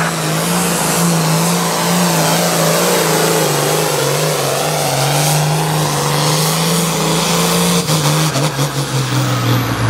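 Turbocharged diesel engine of a hot farm-class pulling tractor at full throttle, dragging a weight-transfer sled down the track with a loud, steady note. Near the end the pull stops, and the engine note wavers and drops lower as it throttles back.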